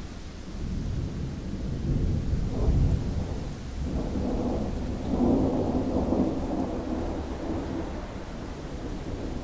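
Rolling thunder: a long, low rumble that swells about two seconds in and again around five seconds in, then fades back.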